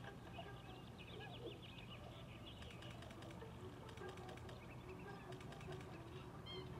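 Small birds chirping faintly in quick, high twitters over a steady low hum.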